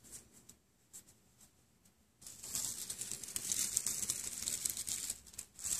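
Bird's-nest tinder bundle of dry leaves, nearly silent at first apart from a few faint ticks, then crackling and crinkling densely from about two seconds in as it catches.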